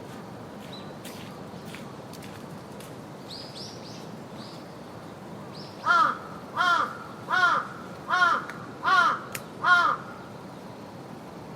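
Raven cawing six times in a steady series, about one harsh call every three-quarters of a second. Fainter high calls from other birds come earlier, over a steady background hum of park ambience.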